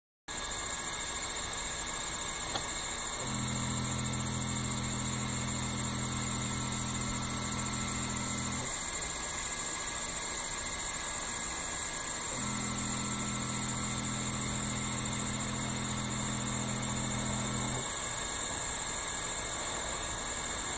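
Laser engraver with a stepper-driven rotary turntable running a job: a steady high hiss and whine throughout, with a low motor hum that comes in twice for about five seconds at a time as the axes move.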